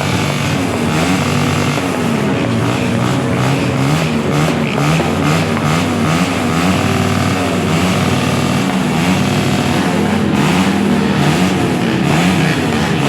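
Dense traffic: many vehicle engines running together, their pitches rising and falling over one another as they rev.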